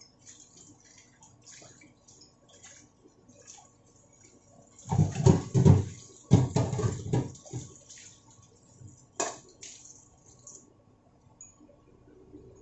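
Ramyun noodle broth simmering in a stainless-steel pan on the stove, with small popping and crackling bubbles. About five seconds in, a louder stretch of low rumbling knocks lasts a couple of seconds.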